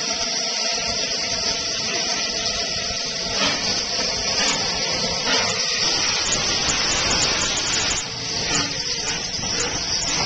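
Steam hissing steadily from Southern Railway Lord Nelson class 4-6-0 No. 850 'Lord Nelson', with faint steady tones under the hiss for the first few seconds.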